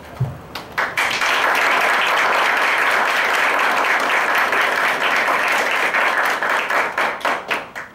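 Audience applauding: a few scattered claps, then full applause about a second in, thinning to a few last claps before it stops.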